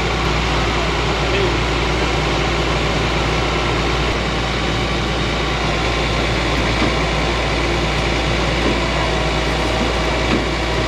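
A heavy truck engine idling steadily, a constant low hum.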